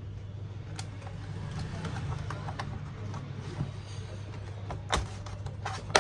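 Plastic laptop parts being handled and fitted back together: scattered light clicks and taps, with two sharper clicks near the end, over a steady low hum.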